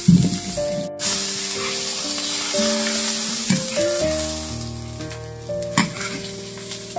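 Food sizzling and frying in a hot pan, with a steady hiss, under background music; there is a brief break about a second in.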